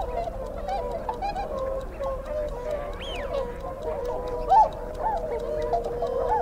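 Experimental soundscape recording: a steady held tone with many short warbling, chirp-like glides over it, some sweeping up high, and faint ticking.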